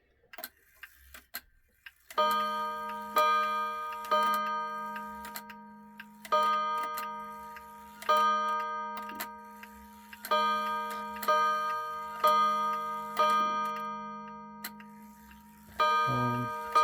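1970s Seiko time-dater clock ticking about once a second, starting about two seconds in, each tick followed by a ringing metallic tone that dies away, over a steady low hum.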